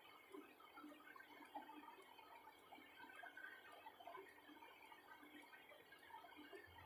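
Near silence: room tone with faint, irregular small ticks and rustles.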